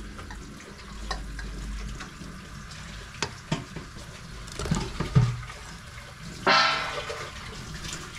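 Kitchen sounds: a wooden spatula knocking a few times against a metal plate as peeled boiled eggs are pushed off into a pot of tomato sauce, over water running from a tap, which rushes louder near the end.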